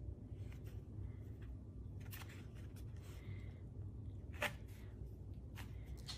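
A few faint taps and scratches on a plastic basket as a cat paws at a finger through its slats, the sharpest one about four and a half seconds in, over a low steady hum.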